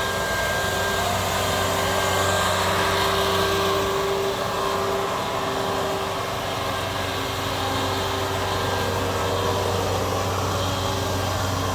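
Combine harvester running steadily: a continuous engine drone with a steady higher whine from the machinery.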